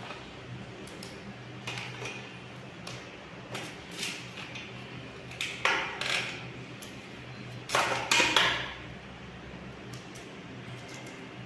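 Knife slicing green chillies on a wooden cutting board: scattered light taps and clicks, with two louder clattering bursts a little past the middle and about two-thirds of the way through, over a steady low hum.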